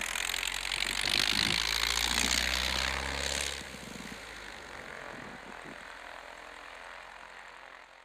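Light ski plane's engine and propeller running at high power close by as it moves across the snow. The sound drops sharply about three and a half seconds in, then fades away.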